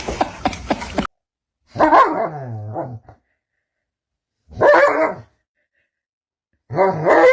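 A dog calls out three times, each call drawn out for about a second with a bending pitch, with short pauses between them.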